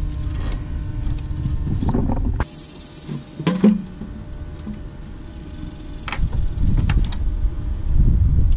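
A few sharp clicks and clinks of hand tools and parts on metal as the intake plenum is worked loose on the engine, over a low rumble and a faint steady high buzz.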